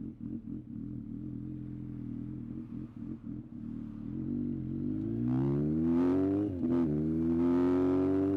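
Yamaha XJR1300's air-cooled inline-four engine idling with an even beat. About halfway through the revs rise, drop sharply for a moment, then climb again and hold higher and louder.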